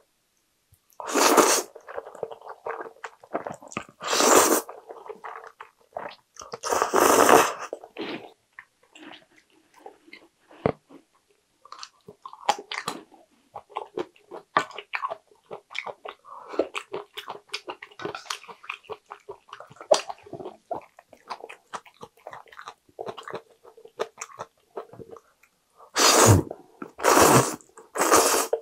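Close-miked eating of saucy jjajang ramen: loud noodle slurps about one, four and seven seconds in, then three in quick succession near the end, with wet chewing and small mouth clicks in between.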